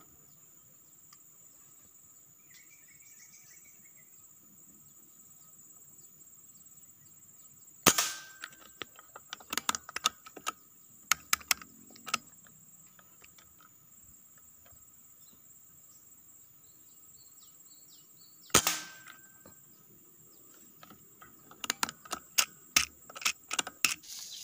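Two shots from a bullpup air rifle, each a sharp crack, about ten and a half seconds apart: one about 8 seconds in, the other near 19 seconds in. Each is followed by a scatter of quick clicks and knocks, and a steady high whine runs underneath.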